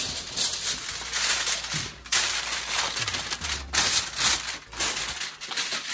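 Aluminium foil being unrolled and crinkled as it is pressed over a baking tray, an irregular run of sharp crackles and rustles.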